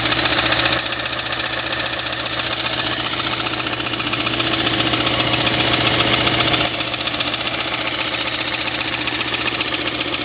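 Rockford 6x48 belt and 10-inch disc sander running, its 115-volt motor humming steadily under a rapid, even ticking from the moving belt. It is a little noisy because the sanding belt is warped and damaged on one edge.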